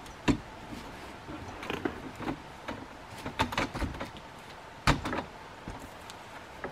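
Clunks, clicks and rattles of an aluminium ladder and a fold-out rooftop tent being opened. There are two sharp knocks, one just after the start and one about five seconds in, with smaller clicks between them.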